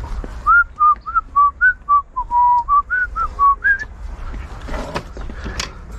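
A person whistling a short, quick tune of about a dozen notes, stopping about two seconds before the end.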